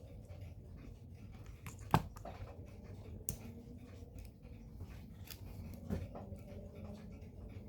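Scattered small clicks and scrapes of metal hand tools against a wristwatch case as the crystal is worked loose, the sharpest click about two seconds in, over a faint low hum.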